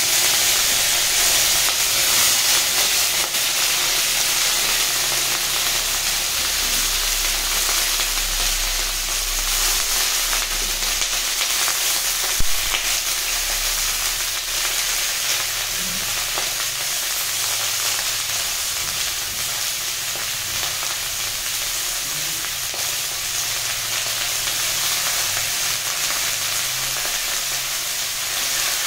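Cauliflower florets sizzling in hot mustard oil in an iron kadhai, a loud, steady hiss of shallow frying that eases slightly as it goes on. A single short knock is heard about twelve seconds in.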